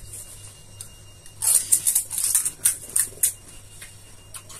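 Crisp pani puri shells cracking and crunching: a quick run of sharp cracks starting about a second and a half in and lasting nearly two seconds.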